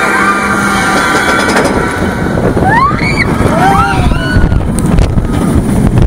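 Inverted roller coaster cresting the lift hill and diving into its first drop: the lift's steady whine dies away in the first second, then wind rushes over the on-ride microphone and the train rattles. Riders scream in rising and falling cries about three seconds in.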